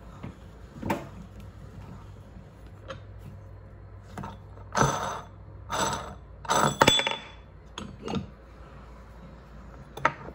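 Metal clinks and scrapes from a hand-cranked meat grinder being taken apart, its front locking ring and perforated plate unscrewed and set down. A handful of separate clatters, the loudest and busiest in the middle, one with a short metallic ring.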